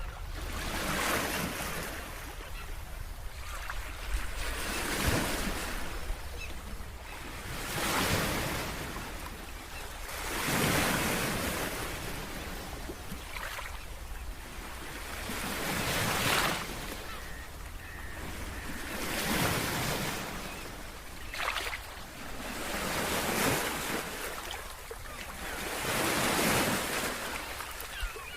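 Ocean waves breaking and washing ashore, the surf swelling and falling away every two to three seconds.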